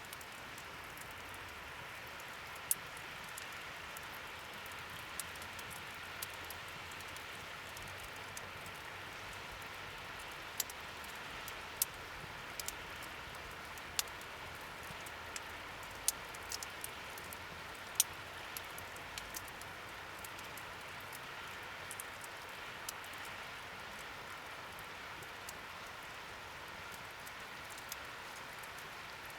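Campfire burning in a fire-pit stand: a steady hiss with irregular sharp pops and crackles, a few each second.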